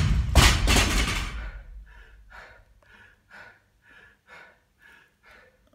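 Barbell loaded with bumper plates dropped on the gym floor, bouncing and rattling down over about a second and a half. Then an athlete panting hard from exertion, about two breaths a second.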